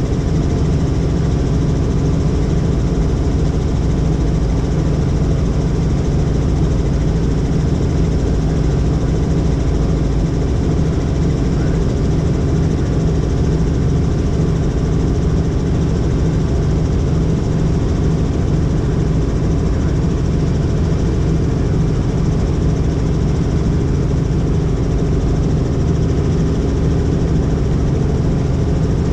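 Helicopter in flight: a loud, steady drone of rotor and engine, strongest in the low range, with a few faint steady tones above it.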